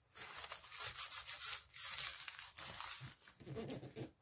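Hands rubbing and smoothing a freshly glued paper image flat onto a kraft card journal cover: a dry, scratchy rustle in several strokes with short pauses between them.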